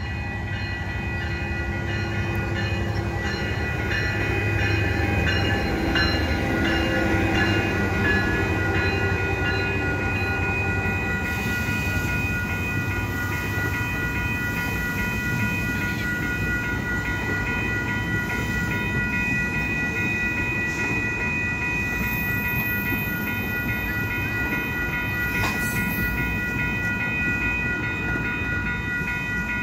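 Passenger train passing a level crossing. The ALP-45DP locomotive's diesel engine goes by in the first several seconds, then the Bombardier multilevel coaches keep rolling steadily over the rails. The crossing warning bell rings steadily throughout.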